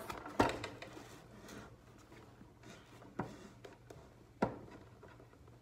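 Faint rustling of toy packaging as small plastic figures are worked free by hand, with a few sharp light knocks; the clearest is about half a second in.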